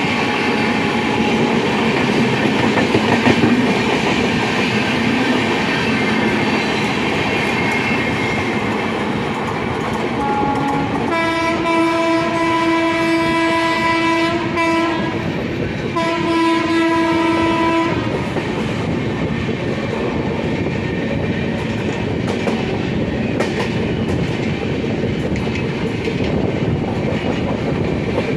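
Running noise of moving passenger trains heard from beside a coach, with a train on the next track passing. A multi-tone locomotive horn sounds twice: a long blast about eleven seconds in and a shorter one about sixteen seconds in.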